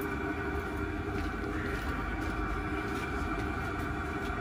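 Chinese 8 kW diesel parking heater running at full power, a steady, unbroken drone with a low rumble.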